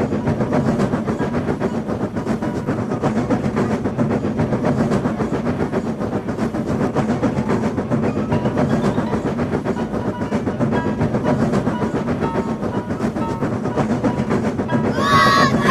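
Train sound effect: a train running along the track, a steady fast clatter of many clicks a second. A brief higher, wavering sound joins near the end.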